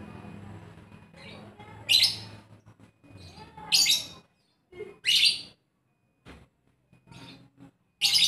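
Lovebird calling in short, sharp, high-pitched chirps: four loud bursts with fainter calls between them.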